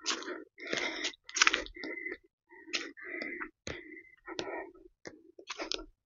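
Footsteps crunching on a stony forest footpath, an uneven run of short steps about two a second.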